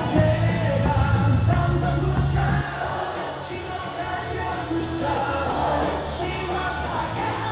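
Baseball cheer music over stadium loudspeakers with a crowd singing along. A heavy bass beat drops out about two and a half seconds in.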